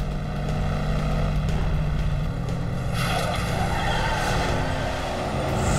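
Car engine running hard at speed. About three seconds in, a loud rush of tyre noise joins it as the car slides through a sharp turn.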